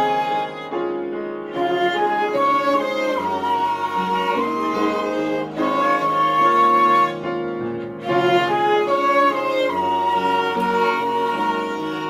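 Violin, cello and piano playing together, the violin holding a slow melody in long notes over piano chords and cello.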